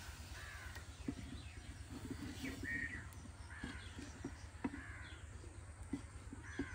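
Crows cawing over and over, about one call a second, with a few sharp knocks in between and a steady low hum underneath.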